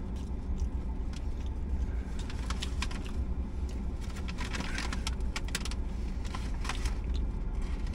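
Paper takeout bag rustling and crinkling while a hand rummages in it and pulls out a carton of onion rings, with scattered small crackles and clicks of paper and packaging. A steady low hum lies under it.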